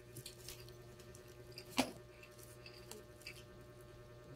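Quiet handling of a cartridge-fired nail gun: faint scattered ticks and one sharper click about two seconds in as its barrel end is worked.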